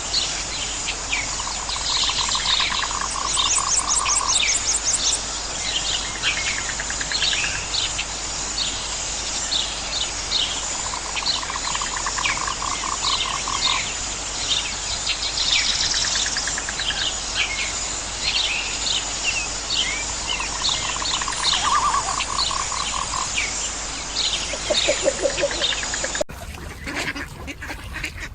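Outdoor nature soundscape of many birds chirping, with a lower pulsed trill of about two seconds that comes back three times, roughly every ten seconds. The sound changes abruptly near the end.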